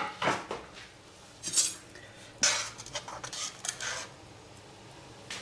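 Metal ladle stirring soup in a stainless steel pan, clinking and scraping against the pan in a string of short, irregular strokes.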